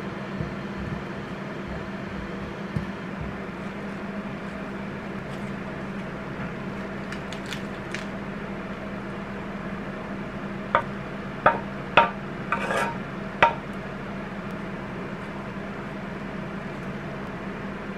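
Steady low hum from a kitchen appliance, with quiet food handling as a burrito is assembled on a tortilla. A run of five sharp clicks and taps comes a little past the middle.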